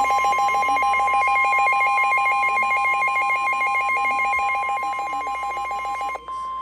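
Emergency Alert System attention signal for a flash flood warning: a steady electronic tone with a fast-pulsing lower tone and a higher warbling tone layered over it. About six seconds in, the layered tones cut off, leaving the steady tone alone.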